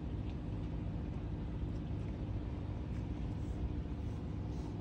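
Steady low mechanical rumble with a constant hum, unchanging throughout, like a motor or generator running.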